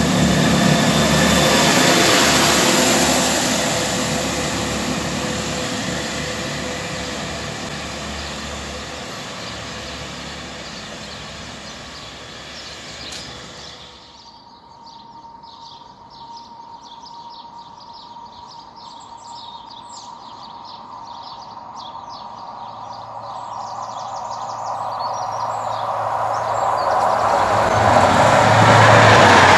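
A loud rushing sound fades away over the first dozen seconds. After a break, an approaching train's running noise grows steadily louder toward the end, over faint high ticks and a thin steady tone.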